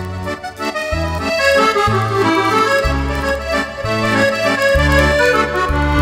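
Roland FR-8x digital accordion playing an Argentine waltz (vals). A melody runs over sustained bass notes that change about once a second.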